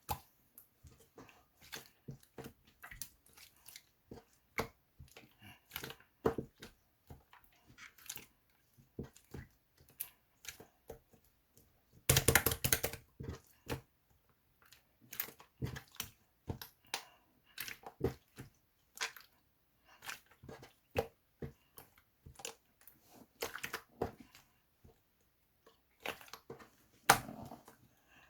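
Slime being squished and stretched by hand, giving irregular wet clicks and small pops, with a louder run of crackling about twelve seconds in.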